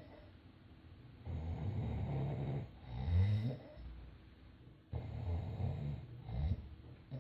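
A sleeping person snoring in slow cycles. A long snore about a second in ends in a louder sound rising in pitch about three seconds in. Another snore follows about five seconds in, with a short burst near the end.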